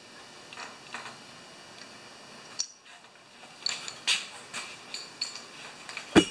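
Hands working on a lawn mower carburetor and its small metal float bowl: scattered light metallic clicks and taps, a sharp click a little over two seconds in and a cluster of taps around four seconds, then a loud thump near the end.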